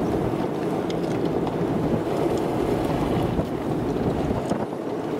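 Steady rushing wind noise against a moving vehicle, heard from a dash camera inside the cab, with a few faint scattered ticks.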